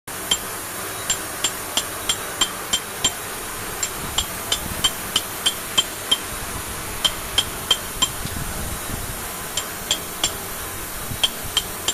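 Hand hammer striking a steel chisel into hard cobalt stone: sharp metallic taps with a ringing ping, about three a second, with a few short pauses between runs of strokes.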